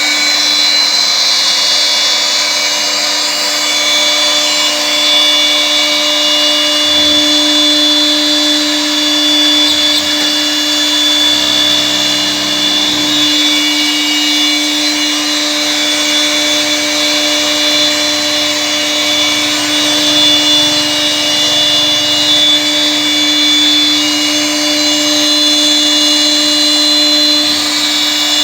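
The air-cooled 2 kW spindle of a 6090 CNC router running at a steady speed while it cuts wood: a constant whine of several steady tones over a noisy haze. A faint low rumble joins in briefly partway through.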